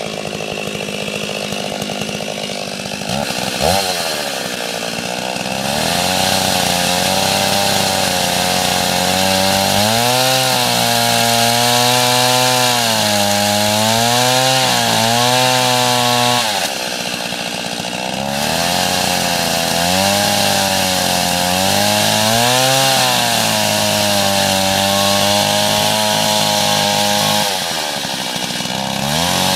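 Stihl MS 381 two-stroke chainsaw with a 36-inch bar running throughout. It starts steady and low, gives one brief sharp rev about four seconds in, then runs faster with its pitch repeatedly rising and falling as the throttle is worked, dropping back briefly twice.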